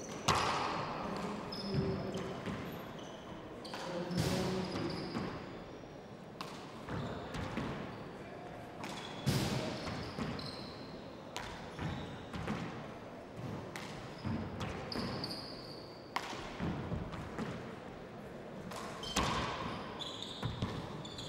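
Handball rally: the small rubber handball smacking off the court walls and wooden floor about once a second at irregular intervals, with short sneaker squeaks on the floor between hits.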